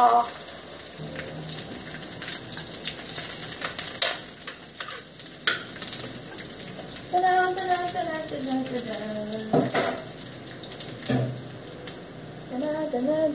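Food frying in oil in a pan: a steady sizzle with crackles, with a few knocks in between.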